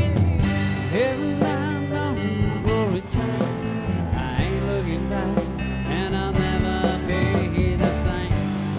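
Background music: a rock-leaning song with a steady beat.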